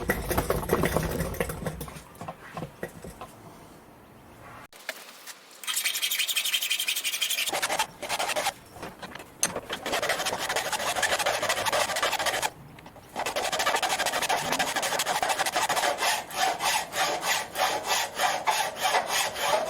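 Hand file scraping back and forth along the edge of a metal plate, in runs of strokes at about three a second with short pauses between runs.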